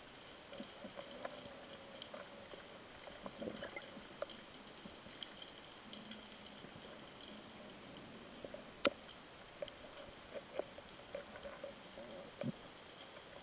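Underwater ambience picked up by a camera in its housing: scattered sharp clicks and crackles over a faint steady hiss, the loudest single click about nine seconds in.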